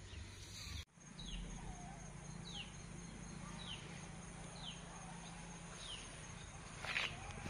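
A bird calling over and over outdoors, a short falling note about once a second, over a steady faint high whine. A brief louder noise comes near the end.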